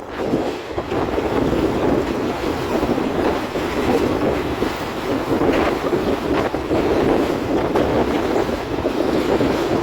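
Moving train heard from on board: a steady rumble of wheels on the rails with faint clatter, and wind on the microphone.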